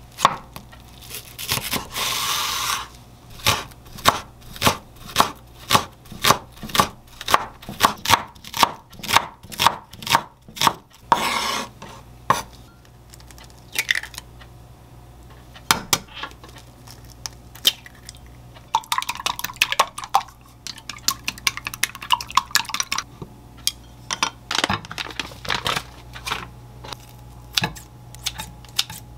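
Chef's knife chopping green onion on a wooden cutting board, a regular run of chops about two a second. After the chopping stops there are scattered knocks and rustles as eggs are cracked into a glass bowl.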